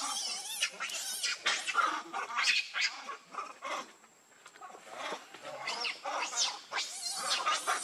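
Young macaque monkeys giving repeated shrill, wavering squeals and screeches, with a short lull around the middle.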